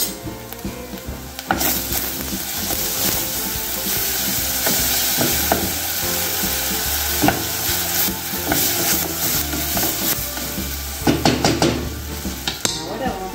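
Chopped onion and ground garlic sizzling in hot oil in a stainless-steel pot while a wooden spoon stirs them, with the spoon's scrapes and knocks against the pot. The sizzle grows louder about a second and a half in, and the spoon knocks more often near the end.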